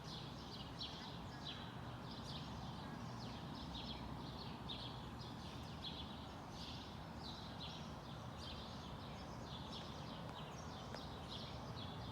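Small birds chirping, many short high calls in quick succession, several a second, over a steady low background hum of distant traffic or city noise.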